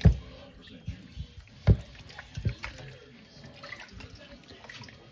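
Wet squelching and slapping of bare hands rubbing seasoning paste into raw chicken pieces in a metal bowl, in a few short, irregular squishes; the loudest comes right at the start and another about two seconds in.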